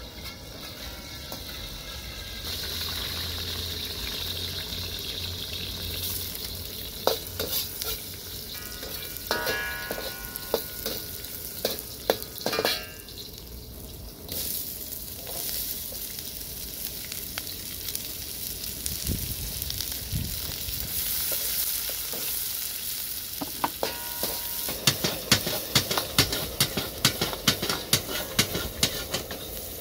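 Food sizzling in a frying pan while a utensil stirs it, clicking and scraping against the pan, with a quick run of clicks over the last few seconds.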